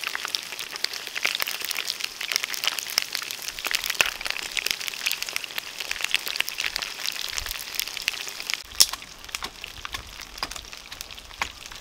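Fish frying in hot oil: a steady sizzle full of fine crackling pops. The crackle thins out after a sharper pop about nine seconds in.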